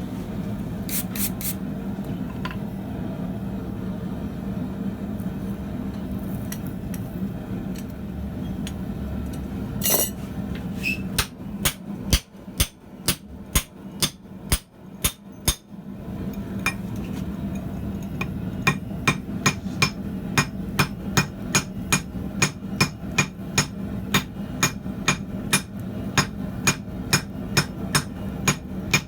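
Steady low hum with a few scattered metallic clinks, then hammer blows on hot steel start about twelve seconds in: scattered at first, then a steady run of about two strikes a second.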